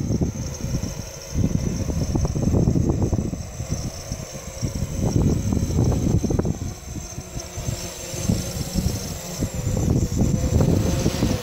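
Quadcopter's four 2818 brushless motors and 8-inch propellers running as it hovers low and then climbs, with a steady high whine over a low rumble that swells and fades.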